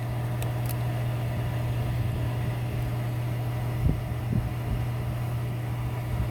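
A steady low mechanical hum, with two faint light clicks in the first second and two soft knocks about four seconds in.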